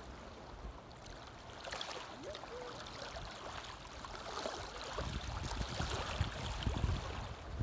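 Small lake waves lapping and breaking on a gravel shore, with a trickling wash over the stones. From about five seconds in, wind buffets the microphone in low rumbling gusts.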